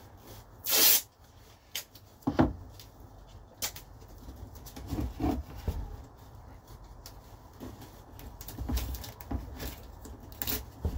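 Masking tape pulled off its roll in one short rip about a second in, then scattered clicks, taps and rustles as strips of tape are handled and pressed onto a hard plastic RC truck body.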